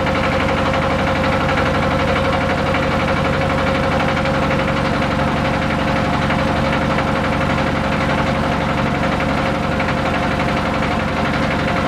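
Small wooden canal boat's engine running steadily with the boat under way, a fast even chugging at a constant pace.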